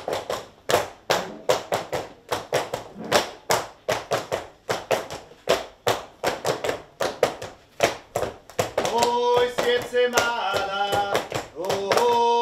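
Sharp rhythmic beats of a folk circle dance, about three to four a second. About nine seconds in, voices take up a song in long held notes.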